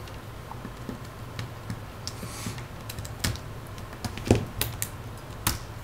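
Precision screwdriver and fingers working tiny screws on a Samsung Galaxy S3's plastic back frame: scattered light clicks and taps, with a few sharper clicks in the second half.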